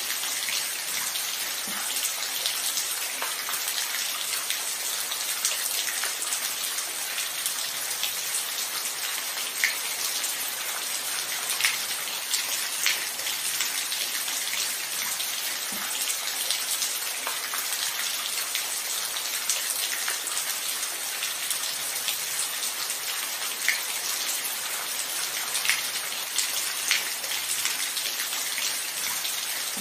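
Steady rain falling, an even hiss with scattered louder individual drops ticking close by. No thunder.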